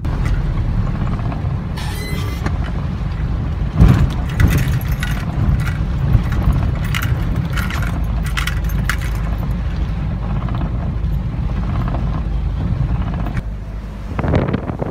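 Road noise inside a moving car: a steady low rumble as it drives on a wet, potholed road, with scattered knocks and rattles as it jolts over the bumps.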